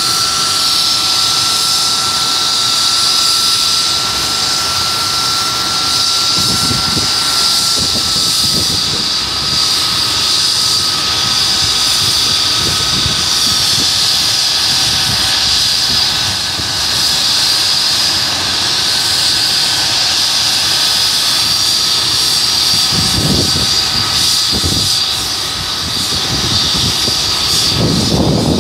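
MD 902 Explorer air-ambulance helicopter running on the ground, its turbines giving a loud, steady high whine with a lower tone that dips slightly about eight seconds in, and a few low rumbling gusts.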